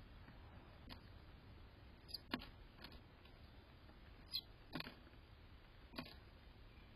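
Near silence broken by about seven scattered, sharp clicks and taps at irregular intervals, the loudest about two and a half seconds in.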